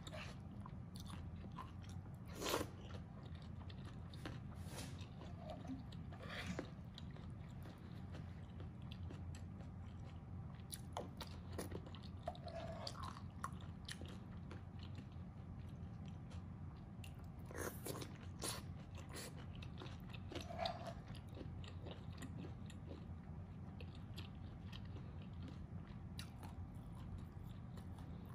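Close-up mouth sounds of a person eating mapo tofu: chewing and wet smacks, with scattered short clicks, over a steady low hum. The sharpest click comes about two and a half seconds in.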